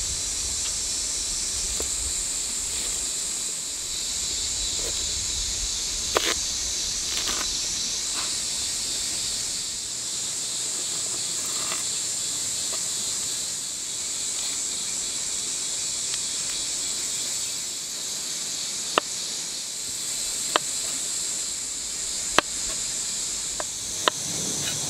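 Chef's knife cutting a fresh bamboo shoot on a wooden cutting board: sharp single knocks of the blade hitting the board, two about six seconds in and four more, about every second and a half, near the end. A steady high hiss runs underneath.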